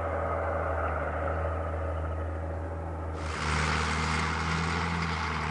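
Caterpillar crawler tractor's diesel engine running under load as it pushes dirt: a steady low drone that turns louder and harsher about three seconds in.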